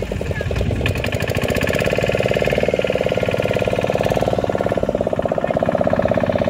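Engine of a motorised wooden river boat running steadily under way, with a rapid, even knocking beat.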